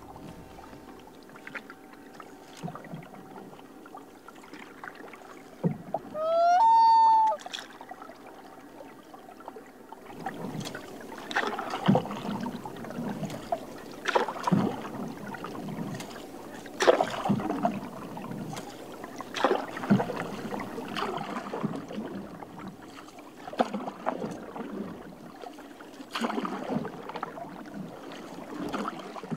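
Canoe paddle strokes in lake water, a dip and pull about every two to three seconds from about ten seconds in. About six seconds in comes one loud call that rises and is held for about a second, a common loon's wail.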